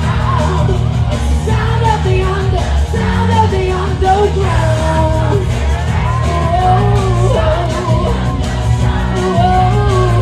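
Live pop music played loud in a hall: a heavy pulsing bass under singing, with shouts and whoops over it.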